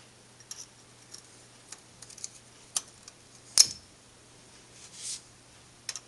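Light metallic clicks and scrapes of a hand tool probing a bolt hole in the lathe bed, trying to clear packed crud out of it, with one sharper click about three and a half seconds in.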